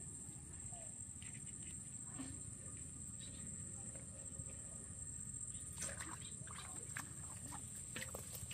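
Soft splashes and rustles of a mesh trap net being lifted through shallow floodwater, with a cluster of them about six seconds in, over a steady low rumble and a steady high-pitched hum.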